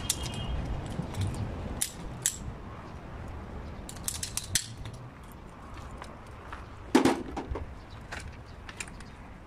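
Scattered light metallic clicks and clinks of hands handling pipe fittings and tools, with a cluster of quick ticks mid-way and one louder knock about seven seconds in, over a low steady rumble.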